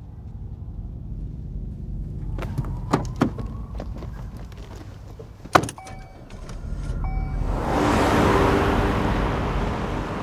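A car running with a low rumble, broken by a few sharp clicks. Then a car drives past with a swelling whoosh, loudest about eight seconds in.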